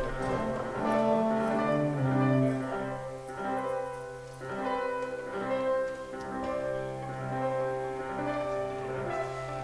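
Instrumental music of sustained low held notes that change every second or so.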